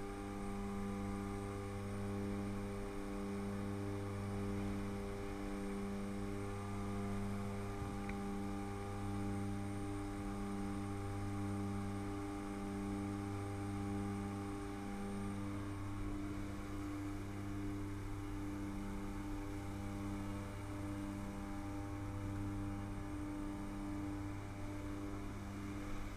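Aircraft engines and propellers droning steadily, heard inside the jump plane's cabin, with a slow regular throb in the drone every second or two.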